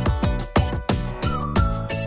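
Background music with a steady drum beat and a lead melody that slides in pitch.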